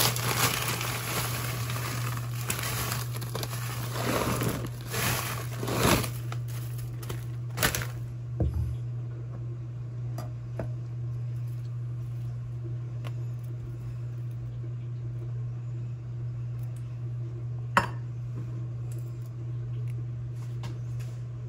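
Plastic bag of frozen corn crinkling as the frozen kernels are poured and rattle into a ceramic slow cooker crock, for the first several seconds. Then it goes quieter, with a low steady hum and a single sharp tap a few seconds before the end.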